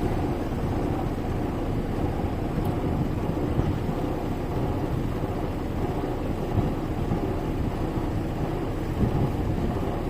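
Wind buffeting the microphone at the seashore, a steady low rumble.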